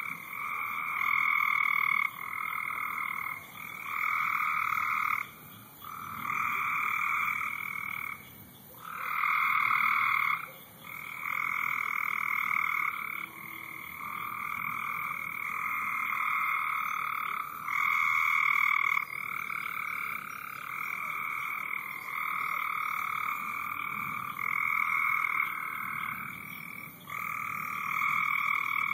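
A chorus of frogs calling: overlapping trills of a second or two each, at two pitches, one following another without a break.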